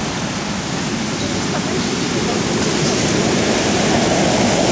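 Storm surf: heavy waves breaking and rushing on the shore in a steady wash of noise that swells as a wave comes in, from about halfway through.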